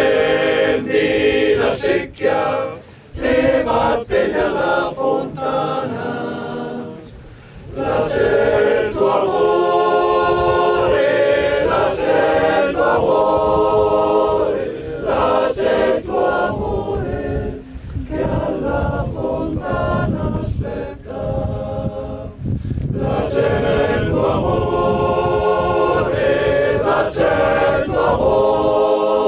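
Choir singing a cappella in sustained phrases, with brief pauses for breath between them.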